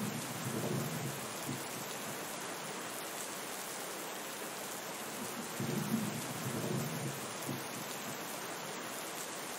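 Steady rain falling, with two low thunder rumbles: one right at the start lasting about a second and a half, and another about six seconds in lasting about two seconds.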